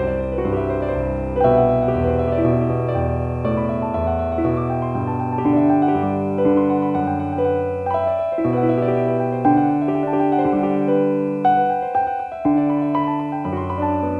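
Slow, gentle piano music: single notes and chords struck one after another and left to ring.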